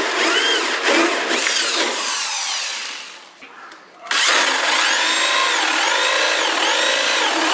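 Corded electric drill with a hole saw cutting through PVC pipe, a whine that rises and falls as the teeth bite. The drill winds down about two and a half seconds in, stops briefly, and starts again suddenly about four seconds in on the next hole.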